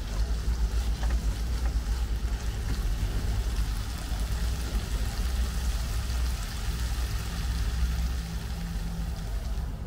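Food sizzling steadily in a hot pan over a constant low rumble.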